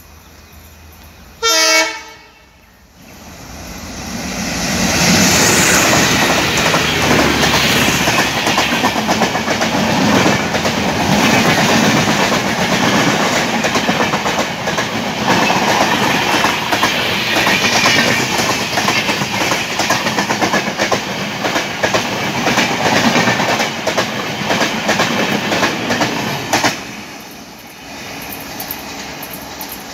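A single short locomotive horn blast about two seconds in. Then an express train of LHB coaches passes close at speed, a loud, long run of rushing and rapid wheel clatter over the rails. Near the end the sound drops suddenly to a quieter, more distant train.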